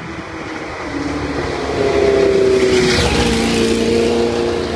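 BRM H16 16-cylinder racing engine running at high revs with a fairly steady pitch, growing louder about two seconds in.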